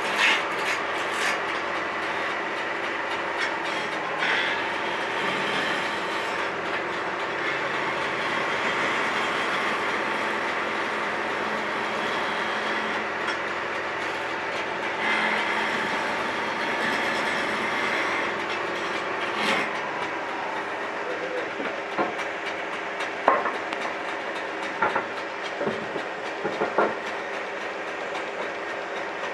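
Wood lathe running while a hand-held chisel cuts a spinning wooden spindle: a steady whir with scraping from the cutting. In the last third, a scatter of sharp knocks.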